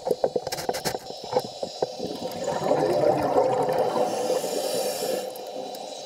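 Scuba diver's exhaled bubbles gurgling past the underwater camera housing for about three seconds, from about two and a half seconds in, after a run of scattered clicks.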